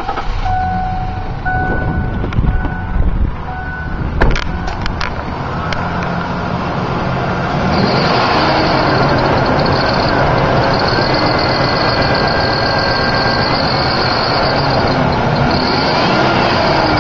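Ford Ranger 3.0 V6 engine running with a loud, high-pitched metallic squeal from the upper idler pulley that sets in about eight seconds in and holds steady, with brief breaks. The owner puts the metal-on-metal squeal down to a worn idler pulley bolt and backing washer. In the first few seconds, an intermittent beeping tone and a couple of sharp knocks.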